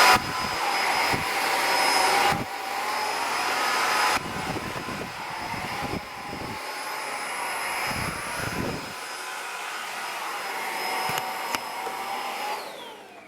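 Cordless stick vacuum cleaner motor running with a steady high whine. Its loudness drops in steps, then it is switched off near the end and the whine winds down.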